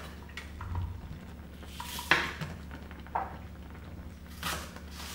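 A chef's knife chopping green onions on a wooden cutting board: a few irregular knocks of the blade on the board, the sharpest about two seconds in. A steady low hum runs underneath.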